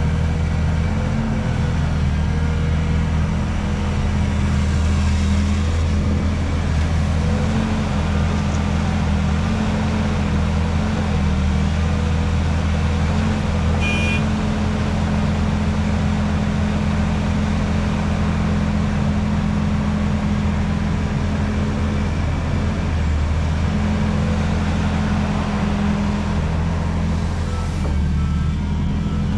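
Hydraulic excavator's diesel engine running steadily, its pitch shifting slightly now and then as the machine works. A brief high-pitched beep about halfway through.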